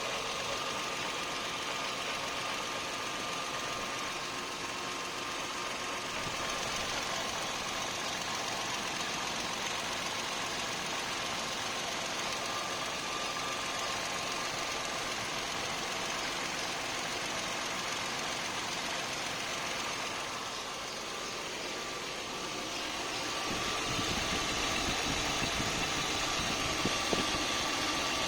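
Toyota 4Runner's 1GR-FE 4.0-litre V6 engine running steadily, with a thin steady high tone over the engine noise. This is the unidentified strange sound the owner wants troubleshot. The sound gets louder and deeper about 23 seconds in.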